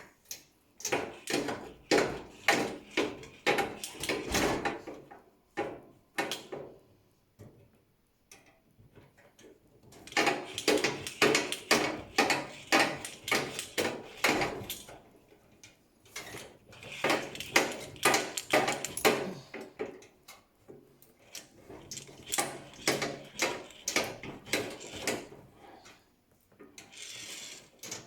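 Ratcheting mechanical clicks, about three a second, in four runs of a few seconds each with short pauses between, as a tool is worked on the gas heater's hose fitting.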